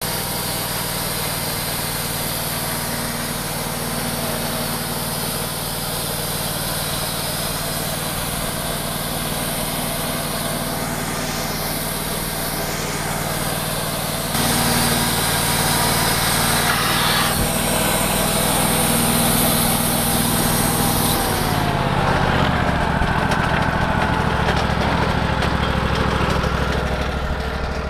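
Wood-Mizer portable band sawmill running, its engine held at speed while the band blade saws through a log, with a steady high hiss over the engine. About three quarters of the way through, the engine drops in pitch and the hiss stops.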